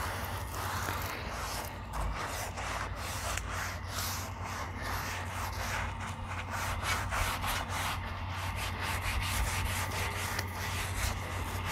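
A hand scrubbing a wet, soapy griddle top with repeated rubbing strokes while washing it before seasoning.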